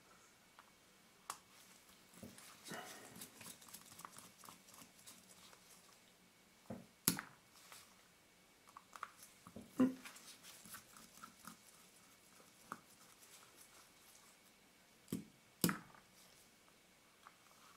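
Scattered light clicks and taps of a small screwdriver and metal lens parts being handled on a workbench, with faint rustling between; the sharpest clicks come about 7 s and 10 s in and twice near the end.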